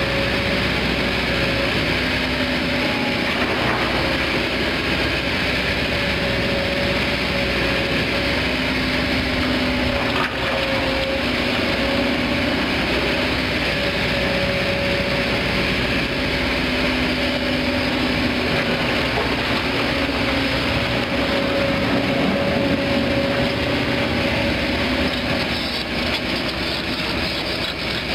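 Kobelco SK200 crawler excavator's diesel engine running steadily under load, with a steady whine that swells and fades every few seconds, over the gritty scraping and crunching of soil as the bucket drags and grades earth.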